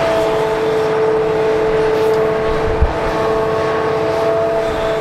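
Hitachi Zaxis 350H excavator's diesel engine running steadily with a high steady whine while the bucket digs into a pile of soil; a single low thump a little under three seconds in.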